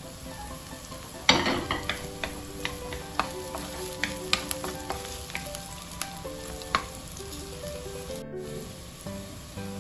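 Chopped garlic and red onion sizzling in hot oil in a nonstick wok while a wooden spatula stirs them. A sudden louder burst comes about a second in, then sharp clicks of the spatula on the pan.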